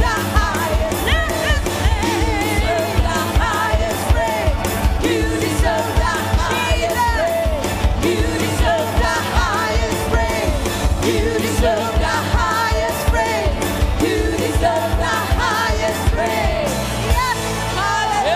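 Live worship band playing: several singers in unison over drums with a steady beat, bass, electric and acoustic guitars and keyboard.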